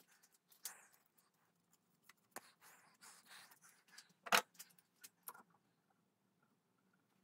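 Metal bar clamps being handled and screwed down over a rifle barrel to press it into its bedding: scattered clinks and rustling, with one sharp knock about four seconds in.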